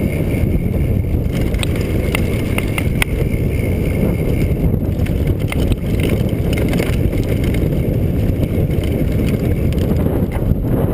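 Mountain bike descending a dirt trail at speed: steady wind rumble on the microphone over the clatter of the bike across the bumps, with scattered sharp clicks and rattles.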